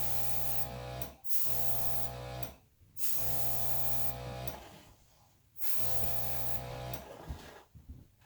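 Small air compressor blowing air to push fluid acrylic paint across a canvas, switched on and off in four bursts of about a second each. Each burst is a steady motor hum under a hiss of air.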